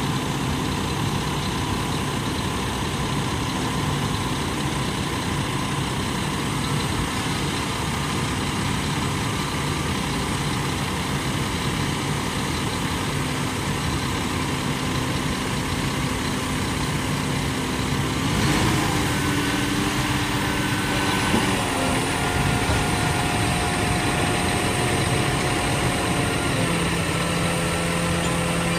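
Scania P360 hooklift truck's diesel engine running at idle while the hydraulic hook arm is worked. About two-thirds of the way through, the engine note changes and new steady tones come in, shifting again twice as the load changes.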